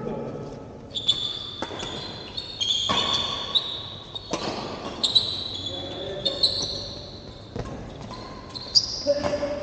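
A badminton rally: rackets strike the shuttlecock several times, in sharp hits spaced a second or more apart. Sneakers squeak on the court floor between the hits, and the sound echoes in a large hall.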